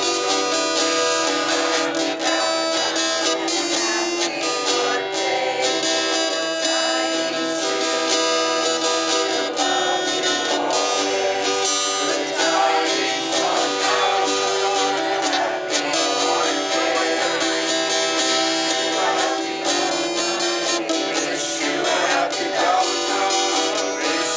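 Acoustic guitar strummed steadily, with a woman singing along.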